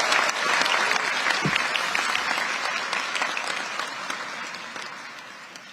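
Large audience applauding, the clapping dying away gradually over the last couple of seconds.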